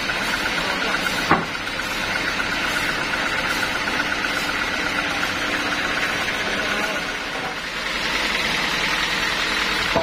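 Homemade band sawmill running steadily as a teak plank is fed along its carriage through the blade, with one sharp knock about a second in.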